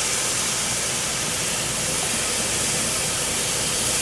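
Carrots, onions and garlic sizzling in oil and butter in a frying pan with soy sauce just poured in: a loud, steady hiss of liquid hitting the hot pan.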